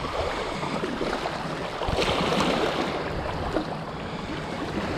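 Shallow surf splashing and lapping against a rocky shoreline as a hooked black drum thrashes in the water, with wind rumbling on the microphone. A louder rush of splashing comes about two seconds in.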